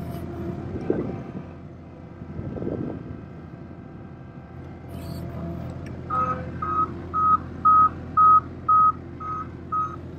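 Avant 528 compact loader's engine running steadily. From about six seconds in, its reversing alarm beeps about twice a second, one loud steady pitch, as the loader backs up.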